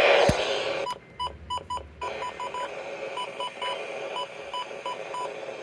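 Radio static hiss with a sharp click, cut off about a second in, followed by a run of short, single-pitch electronic beeps from a radio receiver, irregularly spaced at about three a second.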